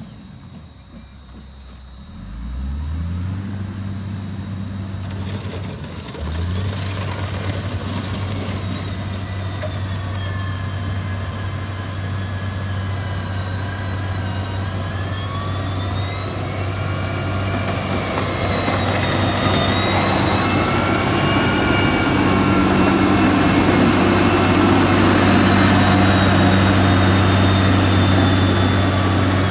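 Heavy diesel engine of road-construction machinery running, picking up about two and a half seconds in and again about six seconds in, then working steadily with a high whine that wavers up and down in pitch and grows a little louder toward the end.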